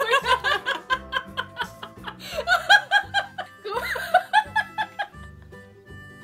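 Female laughter in quick repeated ha-ha pulses over background music, with a short break about two seconds in; the laughing stops about five seconds in, leaving only the music.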